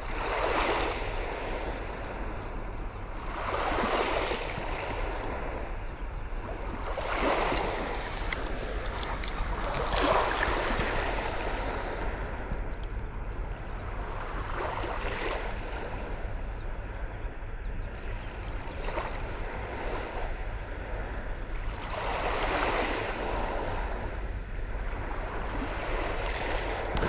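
Small waves washing up on a sandy beach, each wash swelling and fading every three to four seconds.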